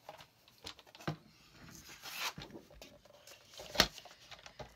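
Paper rustling and sliding with light clicks as a paper trimmer is handled and set up, with one sharp clack a little under four seconds in.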